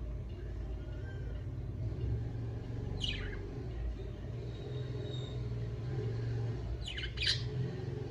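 Pet budgerigar giving short, sharp chirps that sweep down in pitch: one about three seconds in, then two in quick succession near the end, over a steady low rumble.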